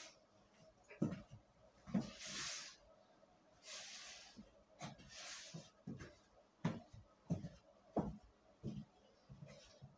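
Footsteps thudding on a floor at an uneven pace, about one a second, with several short swishing rustles in between.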